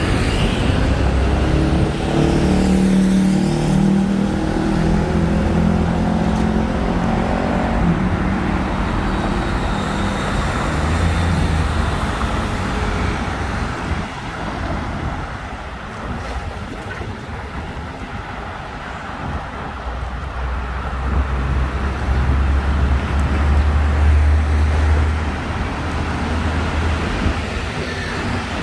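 Road traffic on a busy city road: motor vehicles running and passing close by. A vehicle engine hums at a steady pitch for the first several seconds, and a deep engine hum comes in again in the last third.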